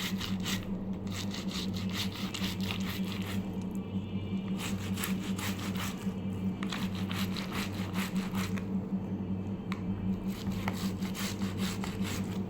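A tomato being grated by hand on a metal grater: quick, repeated rasping strokes in runs with short pauses between them. A steady low hum runs underneath.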